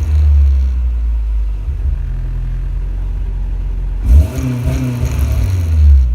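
Honda Integra engine idling with a steady low rumble, its revs rising briefly and falling back about four seconds in.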